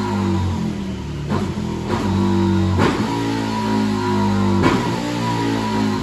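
Rock music with electric guitar and drums, over the KTM 1290 Super Duke GT's V-twin engine running on the dyno.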